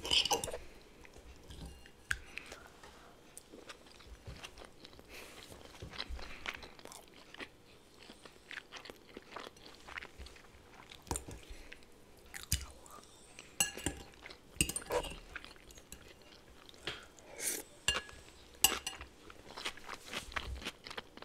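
Close-miked chewing of vegetable salad, with many short, crisp crunches scattered throughout. The crunches come thicker in the second half.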